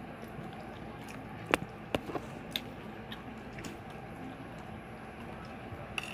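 Eating sounds: chewing and a few sharp clicks and taps of hands, food and plates, the loudest about a second and a half in, over a steady low background noise.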